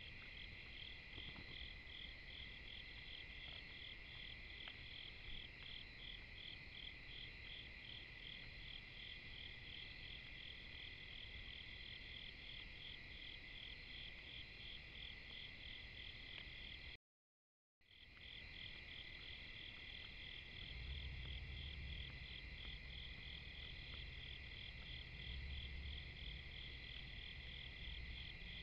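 Night insect chorus of crickets and katydids: a steady high trill with an even pulsing on top, about two pulses a second. It cuts out for a moment about two-thirds of the way through, and a low rumble joins it soon after.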